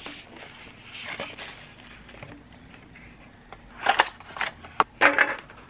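Hands handling gel nail product packaging: a soft rustle of cardboard boxes, then several sharp clicks and taps of a hard plastic nail-strip case near the end.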